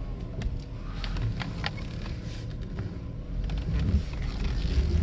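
Low, steady rumble of a 1986 Mercedes 560SEL's 5.6-litre V8 and road noise, heard inside the cabin as the car pulls away, with a few short light clicks.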